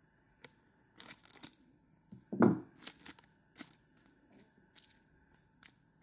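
Small scissors snipping and Swiss straw (synthetic raffia) crinkling as it is trimmed and handled: a series of short sharp snips and crackles, with the loudest, deepest one about two and a half seconds in.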